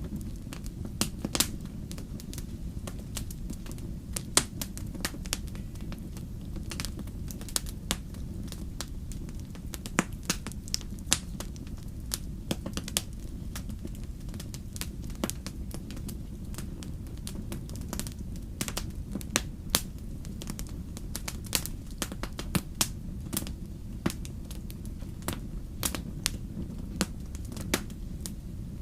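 Wood fire crackling in a fireplace: irregular sharp pops and crackles over a steady low rumble.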